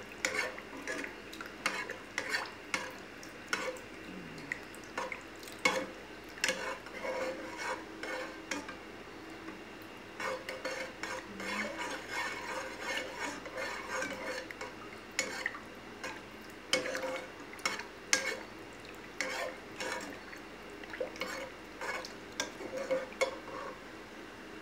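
Metal spoon stirring thick creamy mushroom soup in a saucepan, scraping and clinking against the pan in an irregular run of knocks.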